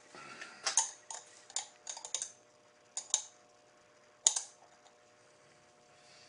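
Irregular sharp metallic clicks and clinks of small hardware and hand tools being handled, as metric adapter studs are fitted to a motorcycle mirror mount. The clicks bunch together in the first couple of seconds, and the loudest comes a little after four seconds in.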